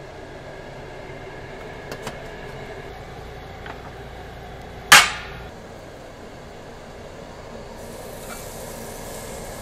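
Tabletop charcoal grill being set up: a few light clinks, then one loud, sharp metal clank with a short ring about five seconds in as the charcoal basket and steel grill parts are set into the table's grill well. A faint hiss comes in near the end.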